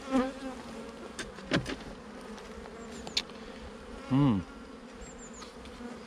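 Honeybees buzzing in a steady hum over an opened hive, with a louder buzz sweeping down in pitch about four seconds in and a few sharp clicks.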